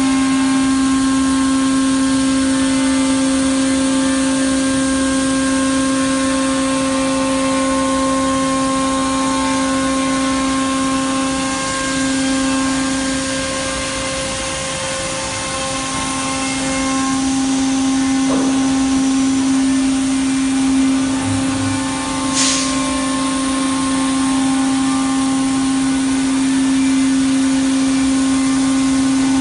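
Spindle of a PADE six-axis CNC router running at speed as its cutter carves a solid-wood chair back: a steady tone over a hiss of cutting. The sound dips a little for a few seconds in the middle, and a short sharp noise comes about three-quarters of the way in.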